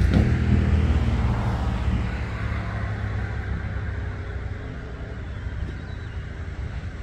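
Tractor engine running as it pulls a hay rake through cut hay, growing fainter as it moves away.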